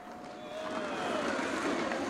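Skateboard wheels rolling across rough asphalt, a steady hiss that builds a little, with a faint whine sliding down in pitch about half a second to a second in.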